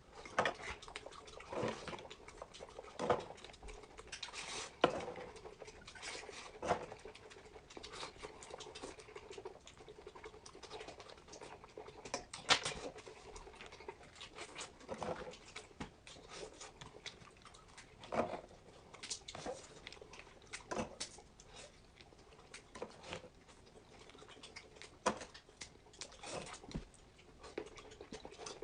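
A person chewing and eating close to the microphone: irregular sharp clicks, smacks and crunches every second or so, the loudest about 12 seconds in.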